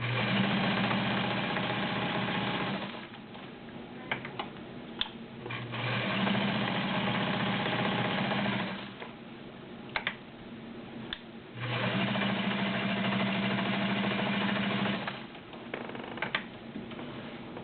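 A vintage all-steel Kenmore Model 84 sewing machine with a 1.2 amp motor stitching through six layers of denim. It runs in three bursts of about three seconds each with a steady motor hum, and there are short clicks in the pauses between them.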